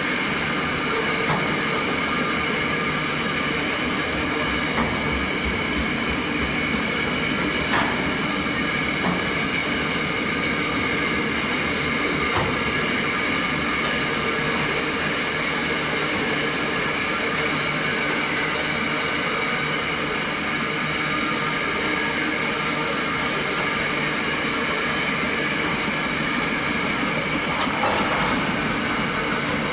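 Loaded container wagons of a freight train rolling slowly past, a steady rumble of wheels on rail with a handful of separate knocks as the wheels cross rail joints.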